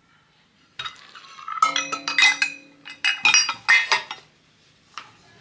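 Kitchen utensils and a measuring cup clinking and knocking against a mixing bowl as an ingredient is added: a quick run of clinks starting about a second in and lasting some three seconds, then a faint knock near the end.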